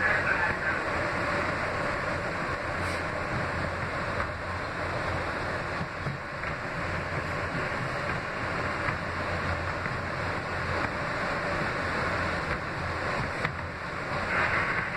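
NYC R160B subway car running at speed, heard from inside the car: a steady rumble of the train rolling along the rails.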